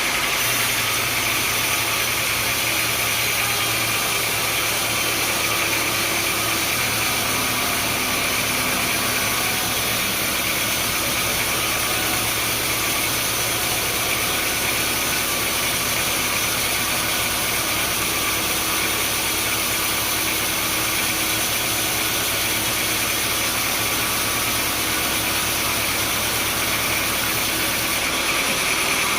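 Sawmill machinery running steadily, a continuous engine-like drone with a hiss over it and no clear strokes or changes.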